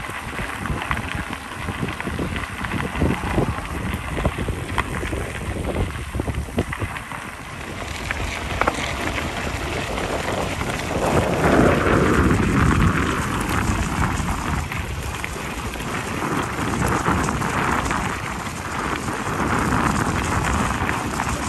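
Bicycle tyres crunching over a loose gravel trail while riding, with wind rushing over the microphone, louder from about eleven seconds in.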